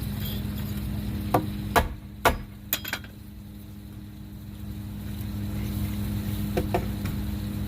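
About five sharp knocks in quick succession, a hammer tapping the new wooden porch post into position, over a steady low hum.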